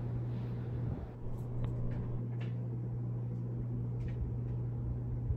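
Steady low hum, with a few faint ticks.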